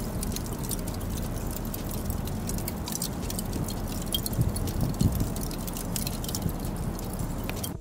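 Freshly lit lump charcoal crackling and popping in irregular sharp clicks as it catches fire after being started with lighter fluid, over a rough low rumble.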